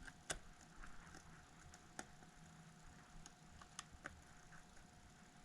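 Faint, scattered clicks and ticks of small tools and tiny metal parts being handled during iPhone 6s reassembly, with a few sharper clicks standing out: one near the start, one about two seconds in, and two close together near four seconds.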